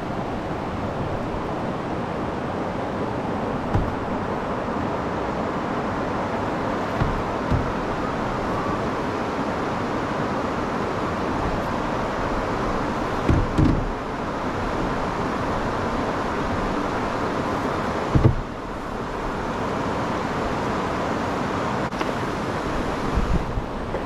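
Steady rushing noise of wind on the microphone and water moving along an open canoe's hull, broken by several short dull thumps, the strongest a little past halfway.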